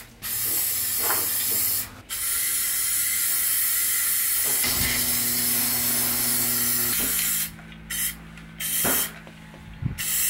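Aerosol can of Rust-Oleum protective enamel hissing as it is sprayed through a trigger handle in long sprays with brief stops, then in shorter bursts near the end: rust-proofing being applied to rust spots in a bare van.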